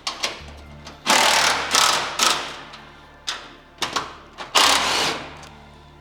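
A handheld power driver runs in bolts in two main bursts, the longer one about a second in and a shorter one near the end, over background music with a steady bass.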